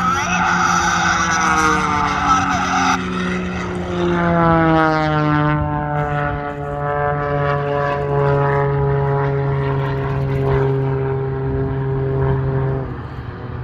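Edge 540 aerobatic plane's modified six-cylinder Lycoming engine and propeller running at high power as it passes. A louder, harsher rush in the first three seconds gives way to a steady drone whose pitch falls as the plane draws away, and the sound drops off sharply near the end.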